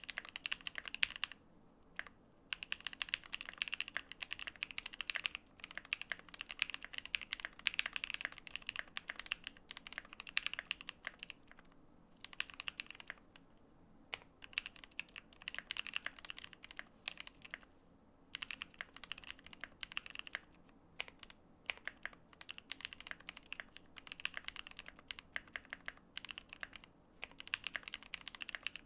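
Typing on a Tofu65 mechanical keyboard with lubed NovelKeys Cream linear switches, an aluminium plate, GMK keycaps and Durock stabilisers, with case foam. Fast runs of keystrokes come in bursts of several seconds, with brief pauses between them.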